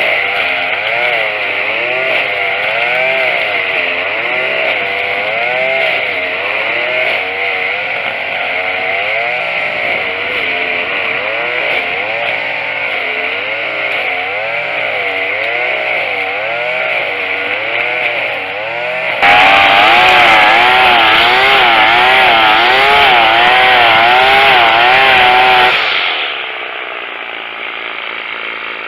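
Tanaka TCG22 22 cc two-stroke string trimmer running at working speed, its pitch wavering up and down in a quick, even rhythm while it cuts grass. About two-thirds of the way in it revs up louder and higher, then drops back to a steady idle near the end.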